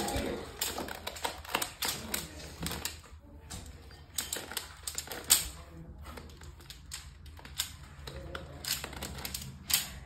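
Plastic twisty-puzzle cube being turned rapidly by hand: a quick, irregular run of clicks and clacks as its pieces turn and snap into place, with one sharper clack about halfway through.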